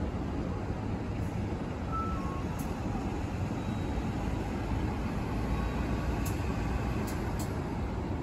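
A city bus's engine running as it drives slowly through a turn, over steady low street-traffic noise. Two short, faint high beeps come about two seconds in.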